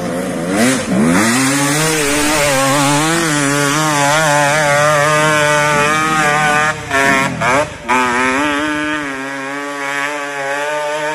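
Dirt bike engine revving hard on a steep dirt hill climb. The revs shoot up at the start, then waver constantly with the throttle. The engine briefly cuts and dips a few times near the end, then runs lower and steadier.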